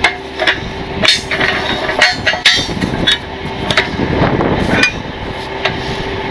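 Rapid metallic clicks and clanks as a ratchet strap spool is cranked with a steel bar, cinching a galvanized wheel-lift scoop down on a tow truck, with a faint steady hum underneath.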